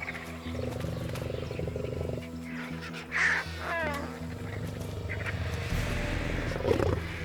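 Lioness growling: a low, rough rumble with louder snarling outbursts, a threat given while she defends a kill.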